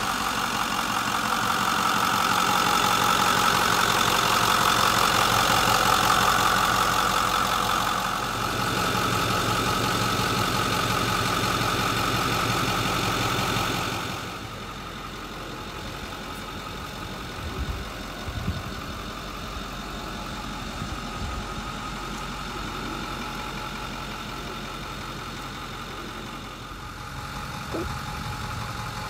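Ford 6.4L Power Stroke V8 turbo diesel idling steadily. It is loud for roughly the first 14 seconds, then continues quieter. There are a few light knocks in the middle and near the end.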